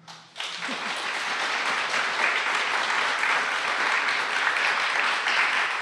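Audience applauding, the clapping rising a moment in and then holding steady.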